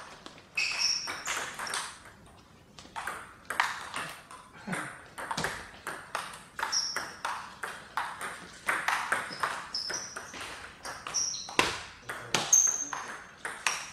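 Table tennis rallies: the celluloid ball clicking off rubber paddles and the table in quick irregular runs, with a short lull about two seconds in. Short high squeaks, from players' shoes on the sports-hall floor, come between the strokes.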